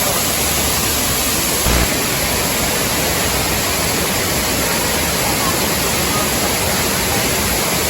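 Large waterfall pouring, a loud steady rush of falling water.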